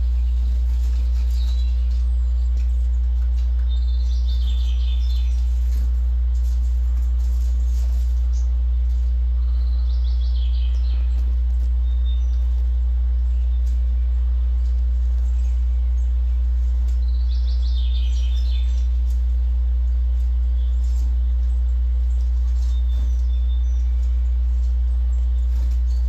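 Recorded birdsong playing from bird videos on the screens: short bursts of chirping and twittering that come and go several times, over a steady low hum.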